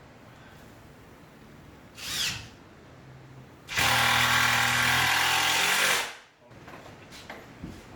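Power drill running: a short burst of the trigger about two seconds in, then a steady run of a little over two seconds that stops abruptly.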